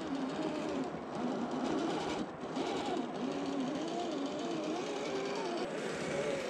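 Electric motor and gears of a scale RC rock crawler whining as it climbs over rock, the pitch wavering up and down as the throttle is worked.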